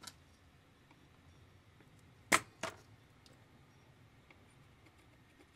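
Two sharp clicks about a third of a second apart, from small hand tools working on a circuit board during capacitor soldering, over a faint low hum.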